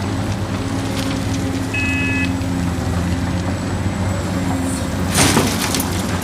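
A heavy vehicle's engine running steadily, with a short high beep about two seconds in and a sharp hiss a little after five seconds.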